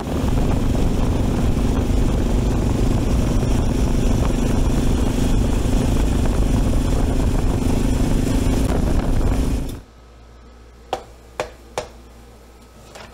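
Engine of a small open vehicle running steadily as it drives along a road, with a steady drone and heavy rumble. It cuts off suddenly about ten seconds in, leaving a quiet room with three light taps.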